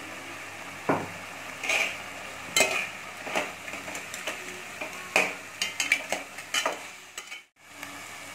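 Metal ladle stirring boiled chickpeas and pumpkin cubes in an aluminium pot, with irregular clinks and scrapes of the ladle against the pot, over a steady low hiss of the pot cooking on the stove.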